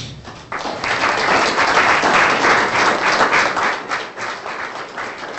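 Audience applauding: a dense patter of many people clapping that sets in about half a second in, stays full for a few seconds, then thins out to scattered claps near the end.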